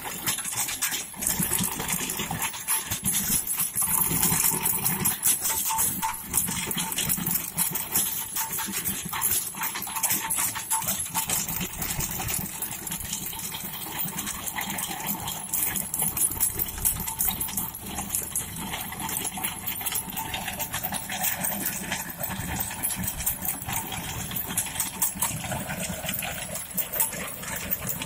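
Tractor-mounted chain trencher digging through dry soil: a continuous dense clatter of the digging chain and its teeth, over the tractor engine running steadily.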